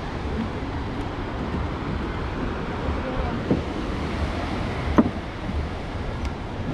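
Wind rumbling on the microphone over the steady wash of ocean surf, with two brief knocks, the louder about five seconds in.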